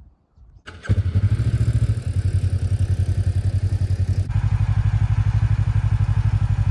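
Vehicle engine running with a low, fast, even throb, cutting in abruptly about a second in.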